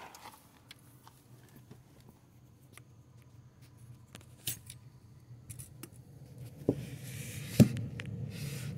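Clicks, taps and a sharp knock as a Snap-on Vantage MT2400 graphing meter is handled and propped up on the dashboard against the windshield. A car engine idles steadily underneath, a little louder near the end.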